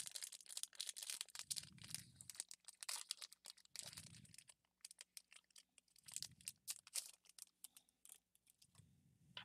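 Foil booster-pack wrapper and trading cards being handled: faint crinkling with many small sharp clicks, and soft low puffs about every two seconds.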